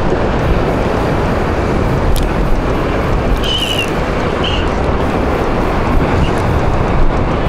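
Steady rush of wind on the microphone mixed with the wash of the sea below. A sharp click comes about two seconds in, and two short high chirps follow around the middle.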